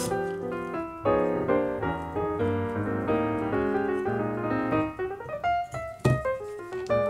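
Light piano background music playing a melody, with one short sharp scrape or knock about six seconds in.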